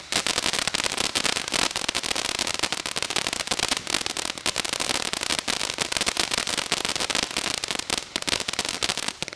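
Small consumer fireworks popping and crackling in rapid, unbroken succession, then stopping abruptly near the end.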